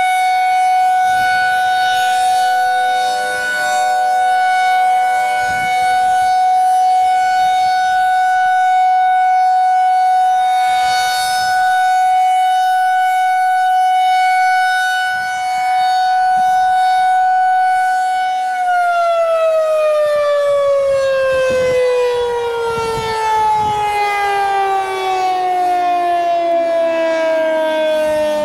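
Federal Signal 2001-SRN civil defense siren holding one steady, loud tone, its loudness swelling and dipping every few seconds. About 18 seconds in, the pitch begins to fall smoothly as the siren winds down. Fainter tones from other distant sirens sound underneath early on.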